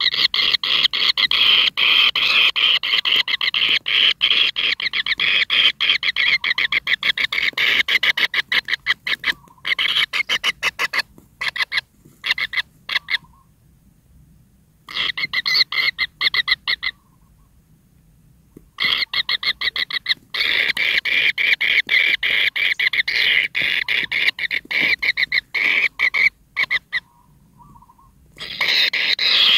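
Kingfisher nestlings in their burrow nest calling: a fast, pulsing trill, repeated almost without pause and breaking off a few times for a second or two in the second half.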